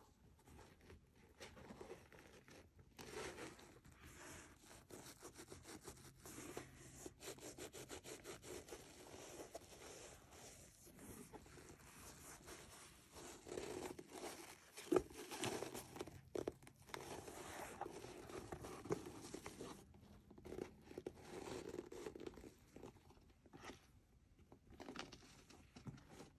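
Hands squeezing, rubbing and turning a pair of leather Jordan 1 Low sneakers, giving a run of soft crinkly scraping and creaking handling noises with short pauses, and one sharp tap about halfway through.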